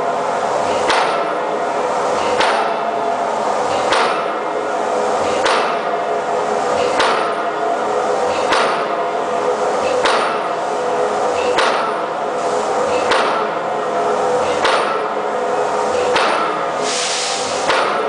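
Impact hammer driving an open-ended steel pipe pile: a sharp metallic strike about every one and a half seconds, each followed by the pipe ringing.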